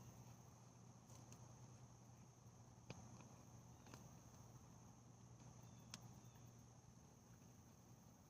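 Near silence: a faint steady high-pitched insect trill, with a few soft clicks about three, four and six seconds in.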